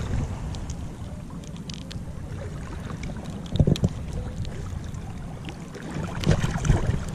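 Choppy sea waves washing and splashing close by, with wind rumbling on the microphone; two louder surges, about three and a half seconds in and again near the end.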